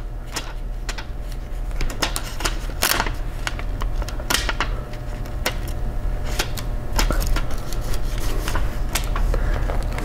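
Irregular small clicks and taps of fingers pressing and adjusting a thin shield part inside an open gaming laptop, over a steady low hum.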